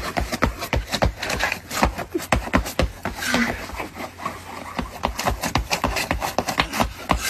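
Quick, irregular scuffing steps and thuds of shoes slipping and catching on an icy, slushy sidewalk, several a second.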